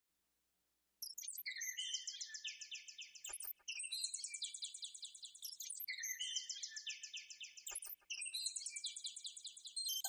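Synthesized 'bird tweet' instrument track playing a looped phrase of rapid high chirps. It starts about a second in and repeats roughly every two and a quarter seconds, one bar at 108 bpm. A short run of clicks ends every other phrase.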